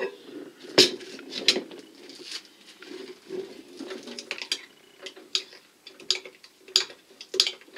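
Metal spoon stirring half-melted plastisol in a glass cup, clinking and scraping against the glass in irregular knocks, the loudest about a second in.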